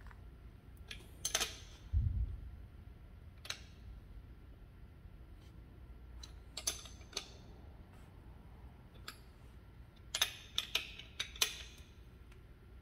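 Scattered metal clicks and clinks of a hand wrench working the nuts on an air-suspension strut's top mount as they are snugged down, with a dull thump about two seconds in and a quick run of clicks near the end.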